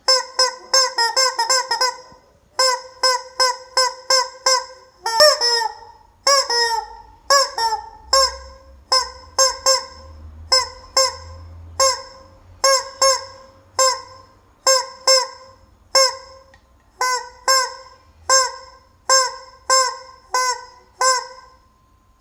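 Rubber chicken toy squeezed over and over, each squeeze a short honking squeak. They come in a quick flurry at first, then about two or three squeaks a second.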